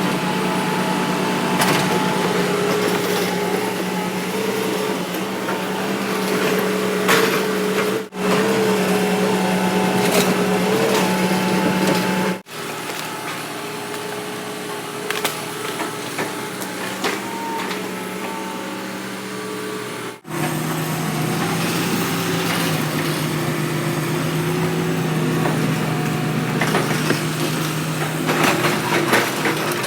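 Hitachi hydraulic excavator's diesel engine running steadily under working load, with scattered sharp clanks and cracks. The sound breaks off abruptly three times and comes back with the engine at a slightly different pitch.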